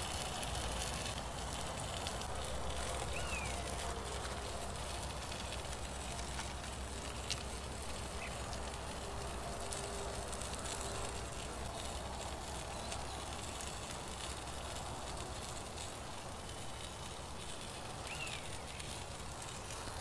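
Steady outdoor background noise, with a short falling chirp about three seconds in and again near the end, and a single faint click in between.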